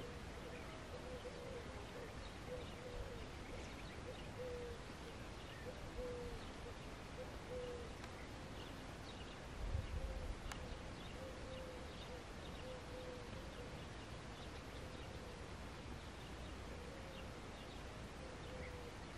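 Faint, low hooting or cooing bird calls repeated about once a second, with faint high chirps in the background. A brief low rumble about halfway through.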